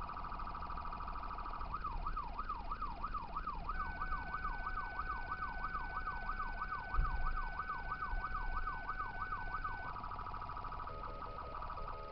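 Fire apparatus electronic sirens running while responding to a call. A fast warble gives way to a yelp sweeping up and down about three times a second, joined by a steady high tone for several seconds, and the sirens then switch to a rapid stepped pattern near the end. A low thump comes about seven seconds in.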